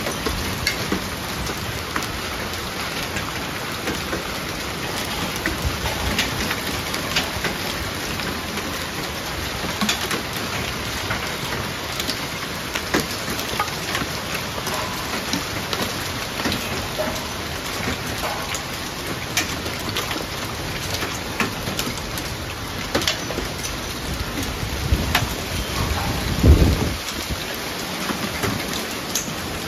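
Heavy rain and hail falling in a thunderstorm: a dense, steady hiss dotted with sharp clicks of hailstones striking, and a brief low rumble near the end.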